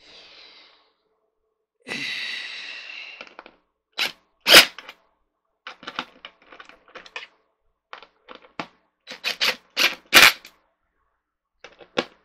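Cordless drill-driver running briefly, then its clutch slipping in quick bursts of sharp ratcheting clicks as it drives screws into a chair seat's mounting plate. The loudest crack comes about four and a half seconds in. The clutch lets go more easily than expected.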